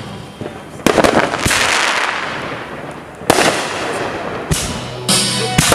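Aerial fireworks bursting with sharp bangs about a second in and again a little past three seconds, each followed by a long crackling fizz that fades, with another burst near the end.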